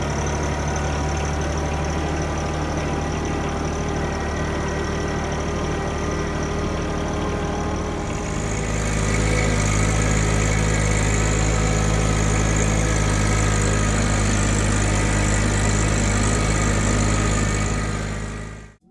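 An engine running steadily at idle, then running louder and harder from about eight seconds in; the sound cuts off suddenly near the end.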